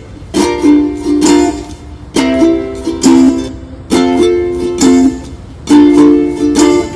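Background music: a strummed string instrument plays a repeating chord pattern, with clusters of quick strums recurring about every second and a half.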